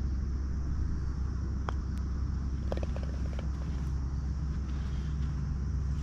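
Golf cart riding along: a steady low rumble with a few light rattles and clicks around two to three seconds in.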